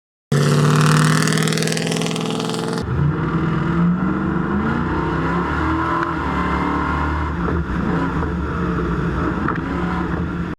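Stadium Super Truck engine running hard, its pitch rising again and again as it accelerates. The sound changes abruptly about two and a half seconds in, as at a cut to another shot.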